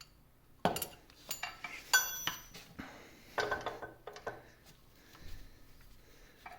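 A small hammer tapping a soft metal punch against a castle nut on a lathe headstock: a handful of irregular metallic taps and clinks, with one strike about two seconds in that rings briefly.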